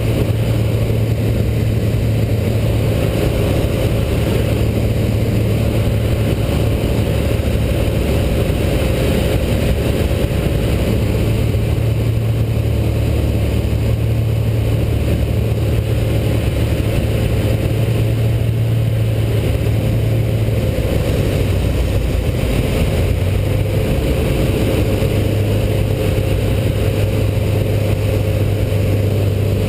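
Rotax 912 four-cylinder four-stroke engine with an AeroInjector and its propeller, a steady drone heard from inside the cockpit in cruise flight. The engine note dips briefly about twenty seconds in, then settles back to a steady pitch.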